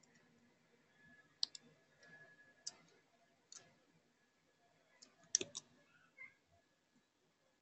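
Scattered computer keyboard and mouse clicks: about eight short, sharp clicks, with a quick cluster of three a little past five seconds in.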